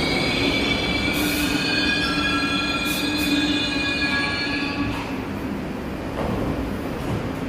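R62A subway train braking to a stop beside the platform, with a high-pitched squeal in several steady tones that cuts off about five seconds in, leaving only the train's lower running noise.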